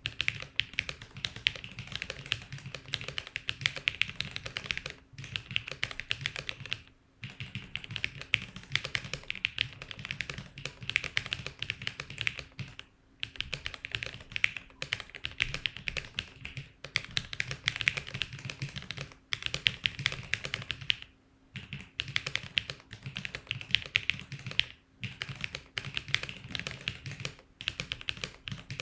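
Fast typing on a KLOR split mechanical keyboard with DSA-profile keycaps: rapid, continuous keystroke clicks in runs of a few seconds, broken by brief pauses several times.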